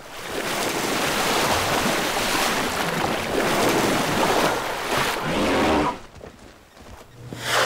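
Heavy splashing and churning of water as bull African elephants shove and grapple in a waterhole. The splashing falls away about six seconds in, with a brief surge of sound just before the end.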